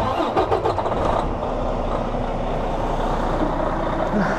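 Detroit DD13 inline-six diesel in a truck, running steadily at idle, with a few sharp clicks in the first second or so.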